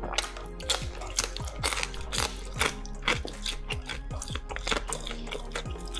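Close-up eating sounds: a man chewing and smacking on sauce-covered dumplings and noodles, with many quick, irregular wet clicks from his mouth. Soft background music runs underneath.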